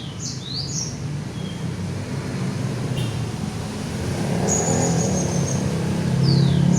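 Songbird calling in short, quick sweeping chirps near the start and again near the end, with a high held note midway, over a low vehicle rumble that swells louder toward the end.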